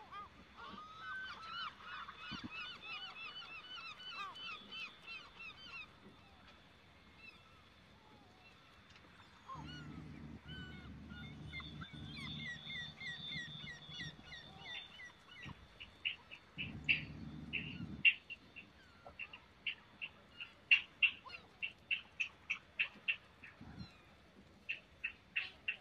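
Birds calling: a fast run of repeated squawking notes, then from about halfway on a string of short sharp chirps at roughly three a second. A low steady drone comes in twice near the middle, for about five seconds and then about a second and a half.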